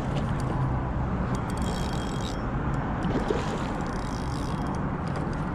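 Steady low rumble of wind on the microphone, with a hooked carp splashing at the surface about a second and a half in and again near four seconds in as it is reeled in on a spinning reel.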